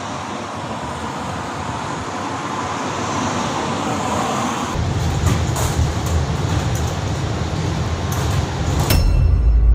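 Roadside traffic noise, then from about five seconds in the low rumble of a bus heard from inside the moving cabin, with a few sharp clicks.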